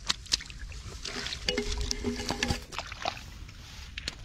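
Hands digging and scooping in wet mud and shallow water, making repeated squelches, clicks and small splashes.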